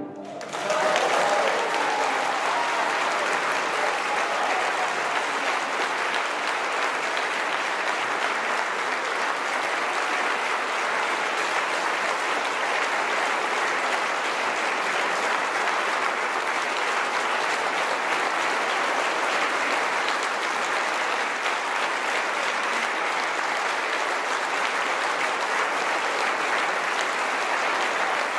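Audience applauding, breaking out about half a second in and then continuing steadily.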